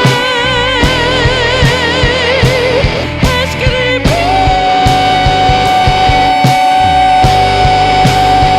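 Psychedelic rock band playing, drum kit and guitars. A long held note wavers in pitch at first, and a new note is held steady from about four seconds in.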